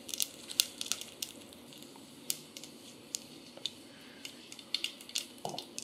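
Mustard seeds and urad dal crackling in hot oil in a stainless steel pot: scattered sharp pops at irregular intervals over a faint sizzle. This is the spluttering of a tempering, the sign that the seeds have hit hot enough oil.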